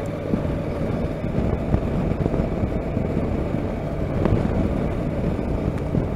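Honda NC700X motorcycle riding at a steady cruise: its 670 cc parallel-twin engine running evenly under a steady rush of wind and road noise.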